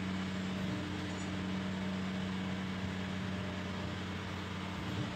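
A steady, low mechanical hum from a running motor, holding one pitch over a background hiss.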